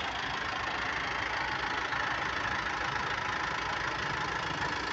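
Truck engine idling steadily, with an even low pulsing.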